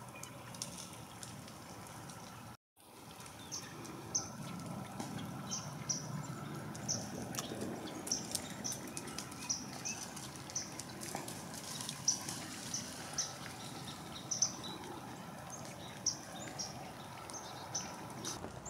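Small birds calling: a run of short, high chip notes, roughly one to two a second, over a steady outdoor hiss. The sound drops out briefly about two and a half seconds in.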